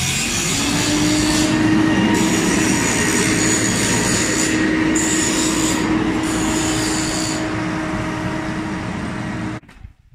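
Loud, steady machine whine with a harsh metallic screech that comes and goes several times, cutting off suddenly near the end.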